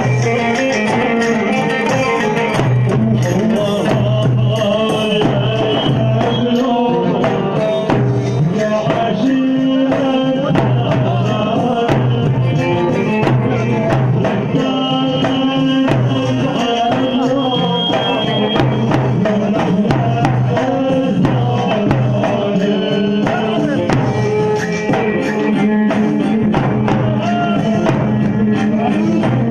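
Arabic wedding-party music: a melody line over a steady, regular percussion beat, playing without a break.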